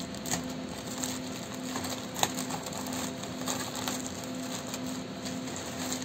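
Crinkling and rustling of a plastic shipping bag being pulled open and handled, with scattered small clicks and one sharp snap about two seconds in.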